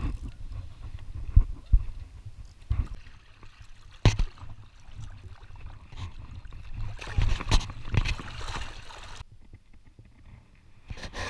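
Shallow water sloshing and splashing around a wading angler's legs, with several sharp knocks and bumps against the camera as a fish is brought in by hand. It goes quieter for the last couple of seconds.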